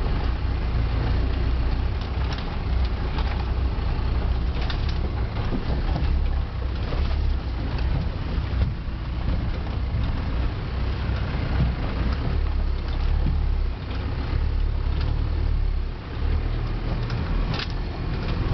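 Land Rover Defender 300Tdi turbodiesel engine running at low revs, heard from inside the cab while the vehicle crawls down a rough rocky track, with a few sharp knocks and clatters from the vehicle jolting over the rocks.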